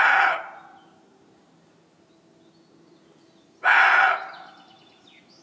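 An animal calling twice, about three and a half seconds apart. Each call is a short, rough cry that fades out over about half a second.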